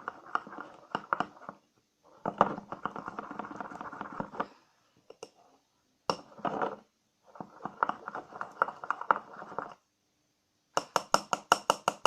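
A spoon stirring a thick liquid-soap and salt mixture in a bowl, clinking and scraping against the sides in several bouts with short pauses, ending in a quick run of sharp taps.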